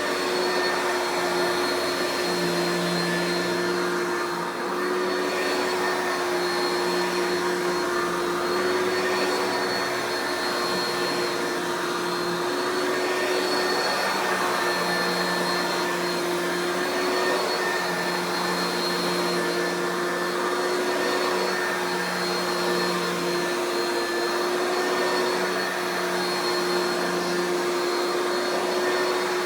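Oreck XL2 Ultra lightweight upright vacuum running steadily with a constant motor whine, and a lower hum that swells and drops every second or two.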